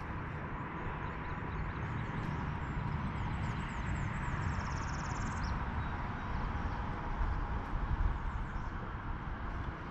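River current rushing steadily, with a few faint high chirps over it around the middle.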